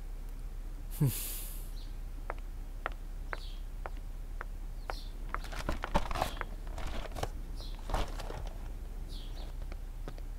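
Quiet outdoor ambience: scattered small clicks and light rustling, with short high chirps every second or two. A brief falling whoosh comes about a second in.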